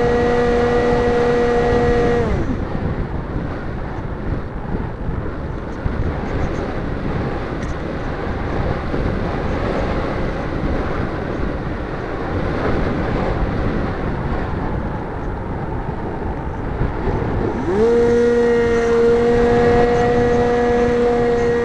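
Multiplex EasyStar RC plane's electric pusher motor, heard from an onboard camera, running with a steady whine that winds down and stops about two seconds in. What follows is only the rush of air over the airframe while the plane glides with the throttle off. A few seconds before the end the motor spins back up to a steady whine as power is put back on.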